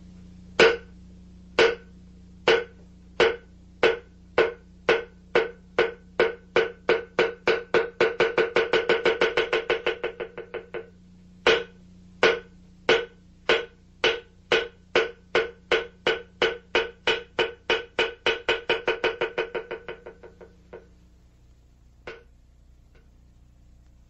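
Wooden percussion block struck in an accelerating pattern: single strokes about a second apart that speed up into a fast roll and fade. The pattern runs twice, then ends with one last strike.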